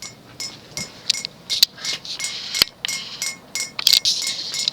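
Emerson Petal ceiling fan running on high and wobbling slightly, its pull chains swinging and clinking against the glass light globe: irregular light clinks, two or three a second, each with a short glassy ring, over a soft rush of air. The wobble is typical of its plastic blades.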